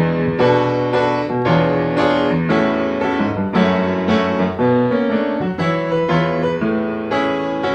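Background piano music with notes and chords struck about twice a second.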